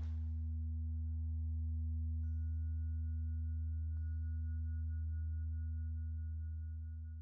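A steady low humming tone with two soft chime-like strikes about two seconds apart, their ringing tones lingering; the sound starts to fade out near the end.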